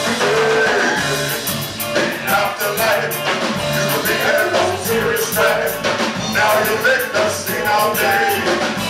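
Live band playing a rock-and-roll number on saxophone, violin and drum kit, with a steady loud drumbeat.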